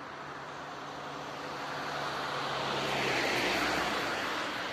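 A white panel van driving past: engine hum and tyre noise build up, are loudest about three seconds in, and then fade as it moves away.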